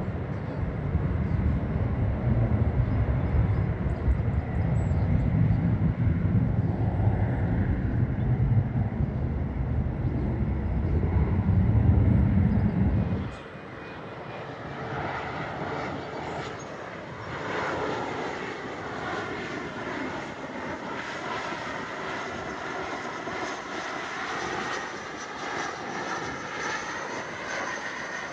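Jet airliner engines: a loud low rumble for about the first half, which cuts off abruptly and gives way to a quieter jet whine with several high tones that bend slowly up and down.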